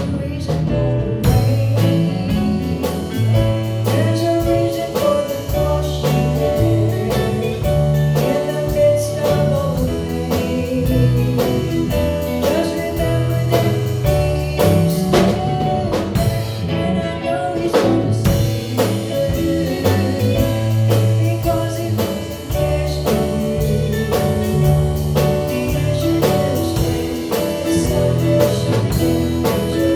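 Live gospel band music with a drum kit keeping a steady beat, bass and guitar, and a voice singing over it.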